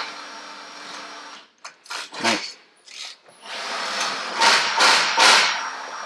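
A power tool running in short bursts, three in quick succession a little past the middle, after a few scattered clicks and knocks.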